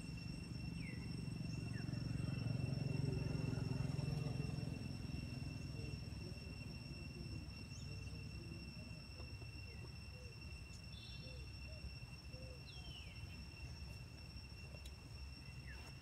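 Outdoor ambience with a steady high insect trill throughout. A low rumble swells a couple of seconds in and fades, and a few short falling chirps come now and then.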